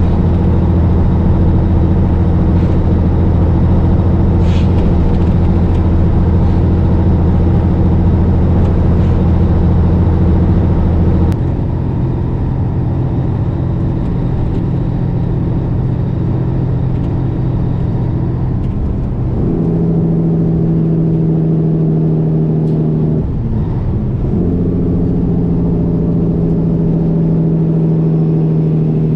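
Diesel engine of a 1984 Peterbilt 362 cabover truck running under way, with a steady droning note. The engine note drops about a third of the way in and settles at a new pitch. About two-thirds in the revs dip briefly and pick up again, as at a gear change.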